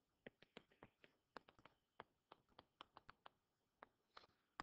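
Faint, irregular clicks and taps of a stylus tip on a touchscreen as a formula is handwritten, about four a second.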